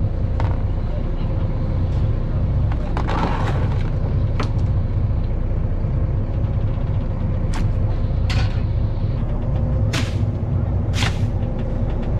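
Fishing boat's engine running with a steady low drone, with scattered sharp knocks and clatters on deck; the loudest two come near the end.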